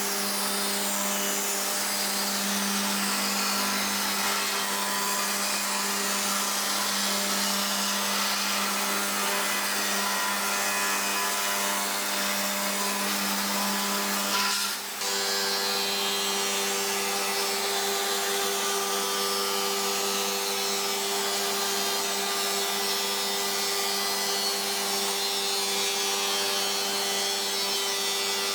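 Rod milling machine running steadily, its motor humming while the cutter shapes wood. About halfway through, the sound shifts abruptly to a different steady hum.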